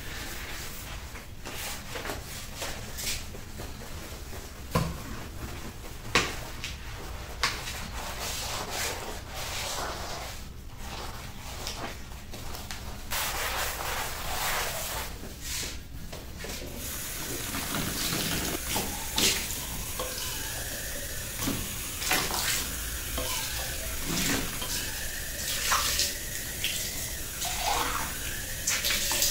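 Washing up at a kitchen sink: a sponge scrubbing, dishes and cups clinking and knocking, and a tap running from about halfway through as a cup is rinsed.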